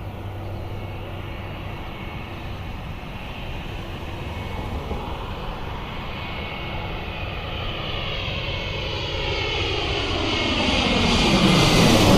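Boeing jet airliner approaching low and passing close overhead, its engine noise growing steadily louder to a peak near the end, with a high engine whine over the rumble.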